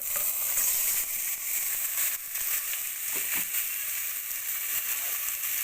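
Chicken pieces frying in hot oil with sautéed onion and garlic: a steady loud sizzle with small crackles, jumping louder right at the start as the chicken goes into the pan.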